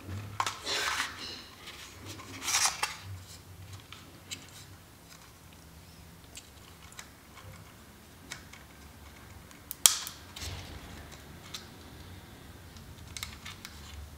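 Plastic scrapes, rattles and clicks of a DJI Mini 3 Pro drone and its flight battery being handled, with the battery slid into the drone's rear battery bay near the end. A single sharp click about ten seconds in is the loudest sound.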